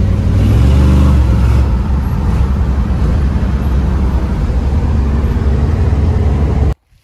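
1967 Plymouth Barracuda's 340 four-barrel V8 with headers, heard from inside the cabin while driving. It swells briefly under throttle about a second in, then cruises steadily, and cuts off suddenly near the end.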